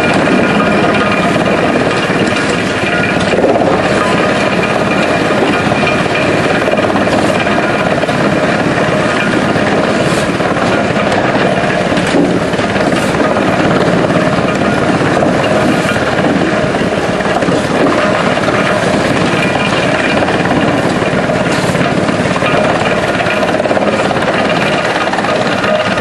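Drum wood chipper running under load, its cutter drum chipping wood fed in by a conveyor. It makes a loud, steady machine noise with a whine of several steady tones, and now and then a sharper crack as pieces are cut.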